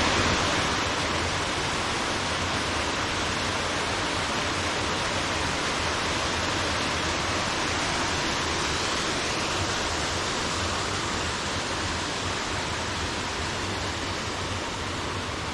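A small waterfall on a gully stream rushing steadily over rock into a pool: an even, unbroken sound of falling water, growing a little fainter near the end.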